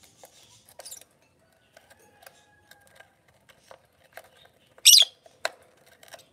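Lovebird giving a loud, sharp high squawk about five seconds in, with a shorter one near the start, amid light scattered clicks and taps of its beak and feet on the wooden nest box and cage wire.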